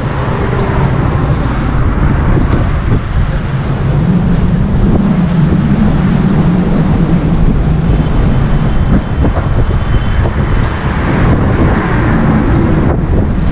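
Strong wind buffeting a GoPro Hero 8 Black's built-in microphone: a loud, rough low rumble that swells and eases.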